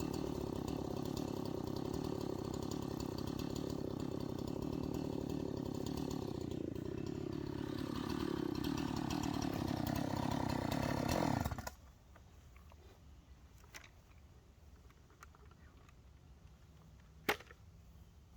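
Two-stroke chainsaw running steadily, then its pitch sagging and wavering under load as it cuts, before it shuts off suddenly about two thirds of the way through. After a quiet spell comes a single sharp snap near the end.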